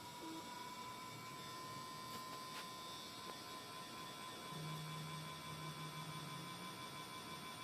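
Xbox console giving off a steady, high-pitched electronic tone with fainter higher whines over it. This abnormal noise comes on at power-up and keeps coming back after a power cycle. A lower hum joins in briefly past the middle.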